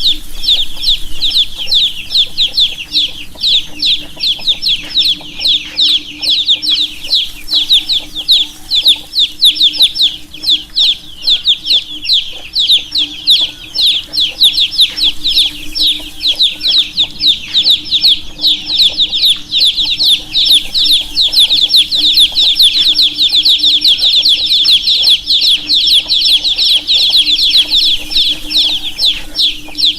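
A brood of baby chicks peeping continuously, many high-pitched chirps overlapping in a dense chorus. A steady low hum runs underneath.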